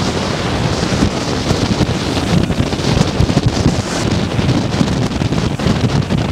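Strong wind buffeting the microphone over heavy storm surf breaking on the beach and against a rock jetty. A steady, loud rush of noise with an uneven low rumble.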